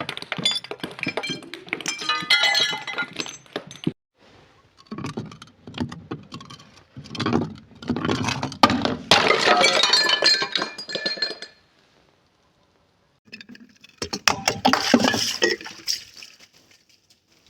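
Glass being broken and crushed, shards clinking and crunching, in three spells with short silent pauses between them.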